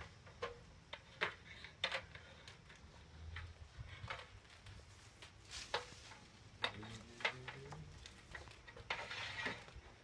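Scattered knocks and clicks of an aluminium extension ladder and a dryer-vent brush's flexible rod being handled during climbing, with a short rising tone about seven seconds in and a brief scrape near the end.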